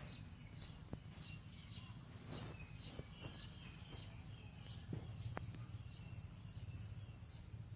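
A bird calling a steady series of short, high chirps that each slide down in pitch, about two a second, over a faint low hum.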